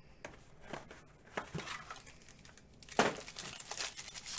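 Box of baseball trading cards being opened by hand: packaging and wrapper crinkling and tearing in short scattered crackles, with a louder crackle about three seconds in.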